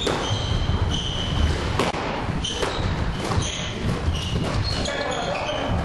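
A football being kicked and knocking against the walls and wooden floor of a squash court, a few sharp knocks, among many short, high squeaks of sports shoes on the floor.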